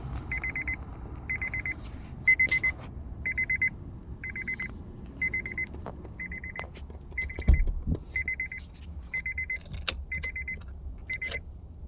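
A car's warning chime beeps steadily about once a second while keys jangle and the ignition key clicks, with a thump about halfway through. The engine does not crank, which the owner blames on a bad ignition switch.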